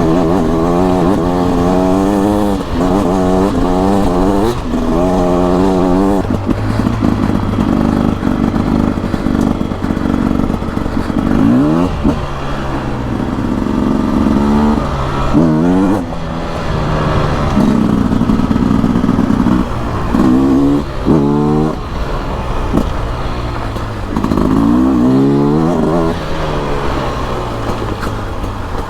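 Beta RR 300 carburetted two-stroke enduro engine under way, revving hard several times with its pitch climbing and then dropping back, running steadier in between.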